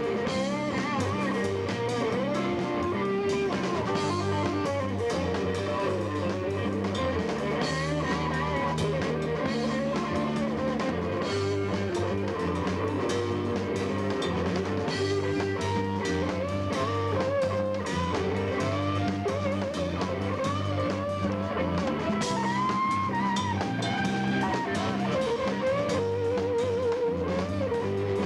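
Live blues-rock band playing an instrumental passage: guitars, bass and a drum kit, with a lead line of bending, wavering notes running over the top.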